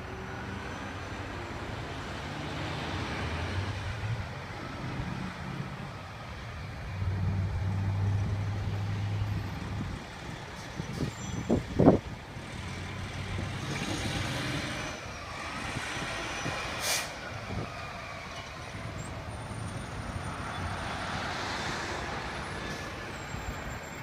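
A fire engine's diesel engine running as the truck moves off, its air brakes hissing. The engine grows louder for a couple of seconds about a third of the way in, and a few sharp, loud sounds come about halfway through.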